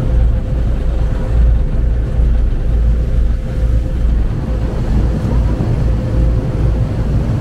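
A river tourist boat's engine running steadily under way, with a constant hum and a heavy low rumble, plus wind on the microphone.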